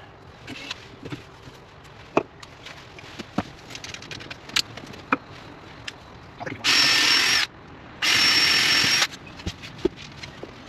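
Power drill run in two short bursts with a steady whine, the second slightly longer, among light knocks and taps of wood being handled.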